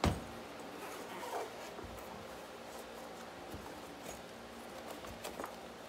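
Faint clicks and rustles of objects being handled on a workbench, over a low steady background hum. A click comes at the very start, and a short faint rising sound about a second and a half in.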